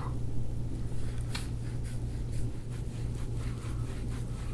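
Steady low hum with faint, irregular clicks and crackles as a gua sha scraping tool is worked over the skin and soft tissue of the upper back.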